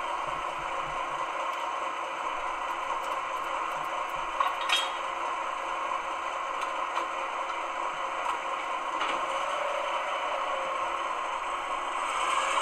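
Diesel shunter engine sound from a Gauge 1 model locomotive's ESU LokSound 5L decoder, running steadily with a rattle. There is a short sharp clank about four and a half seconds in, and the engine note rises and grows louder near the end as the loco starts to move.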